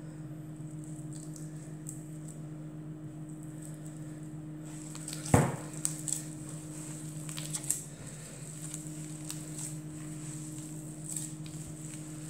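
Hands kneading soft yeast dough in a glass bowl while butter is worked in, with squishing and soft patting sounds over a steady low hum. A sharp knock about five seconds in, followed by a few lighter knocks.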